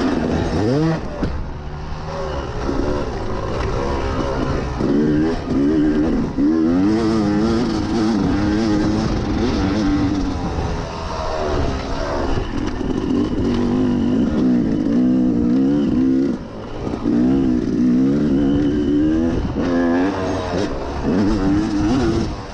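Yamaha YZ250 two-stroke dirt bike engine revving up and down as the rider works the throttle, the pitch swinging repeatedly, with a brief drop off the throttle about two-thirds of the way through.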